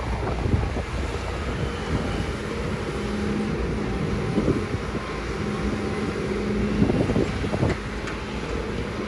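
Komatsu PC200 hydraulic excavator working, its diesel engine running under load as the bucket digs in water and the upper body swings. A steady droning whine comes in for a few seconds midway, and there are several short knocks in the second half.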